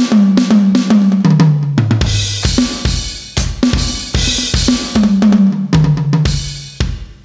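NUX DM-1X electronic drum kit's sampled drum sounds being played: a fast tom fill stepping down from the high toms to the floor tom, then crash cymbals about two and three seconds in, then a second descending tom fill. The playing pauses near the end.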